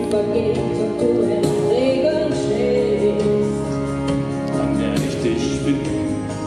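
Background music with a singing voice held in wavering, drawn-out notes over sustained instrumental chords.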